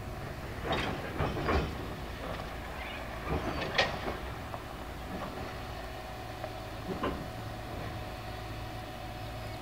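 Narrow-gauge grain hopper wagons rolling slowly while shunting, their wheels giving irregular sharp clicks and knocks with brief squeals over a steady low rumble. The clicks bunch in the first four seconds, the loudest about four seconds in, with one more about seven seconds in.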